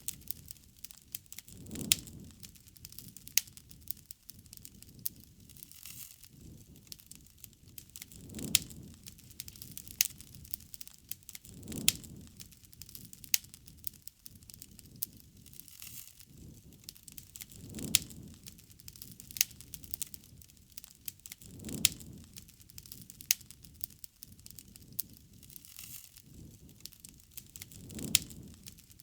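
Wood bonfire crackling, with frequent sharp pops and snaps and a soft low rush every few seconds.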